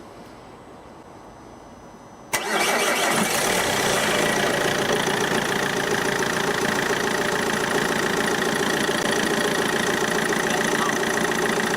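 Car engine starting about two seconds in, then running steadily at idle with the bonnet open.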